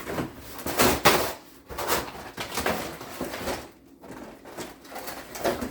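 Cardboard box and plastic packaging rustling and scraping in several short bursts as a large toy vehicle is pulled out of its box.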